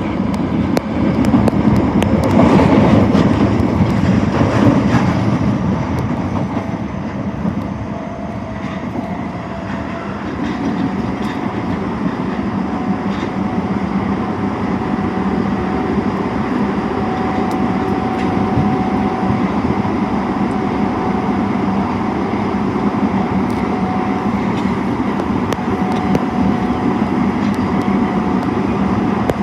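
Osaka Metro Tanimachi Line 22 series subway car 22618 running, with steady wheel and track rumble and a faint high-pitched whine over it. The rumble is loudest in the first few seconds, then settles to an even level.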